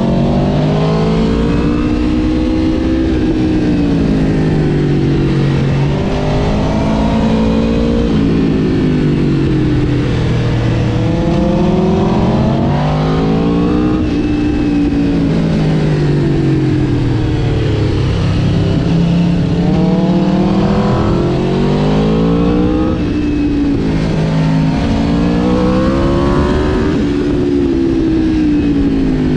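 2021 Aprilia RSV4 Factory's V4 engine, heard from the bike, revving up and easing off over and over as it is ridden hard through a run of bends, its pitch climbing and dropping every few seconds.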